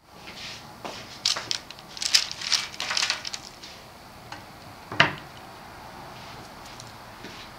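Kitchen handling noises: a run of light rustles and clicks, then a single sharp knock about five seconds in as a cake is set down on a round metal wire rack.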